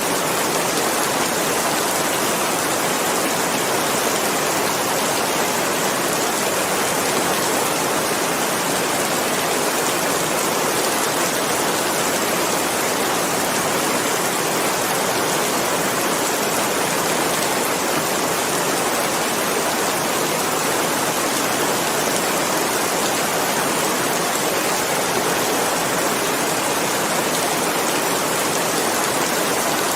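Steady, even rain noise: a constant dense hiss of rainfall with no separate drops or thunder standing out.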